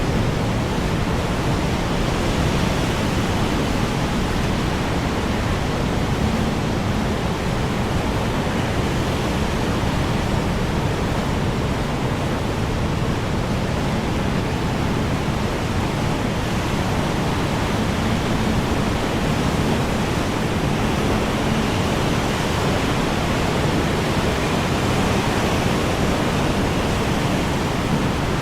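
Strong wind blowing steadily, a dense, even rush that is heaviest in the low range, with no gusts standing out.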